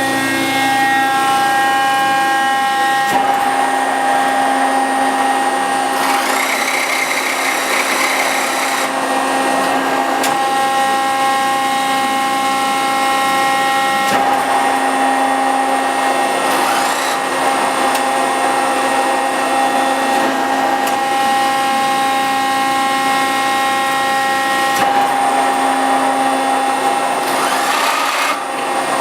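The hydraulic power unit of an Accurpress 60-ton CNC hydraulic press brake running with a steady whine. Three times the whine gives way to a brief rush of noise with a rising pitch, as the load on the hydraulics changes.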